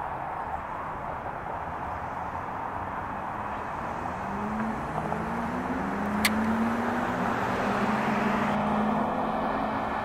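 Steady urban traffic noise, with a motor vehicle approaching: its engine hum rises in pitch and grows louder from about four seconds in, then holds. A single sharp click comes about six seconds in.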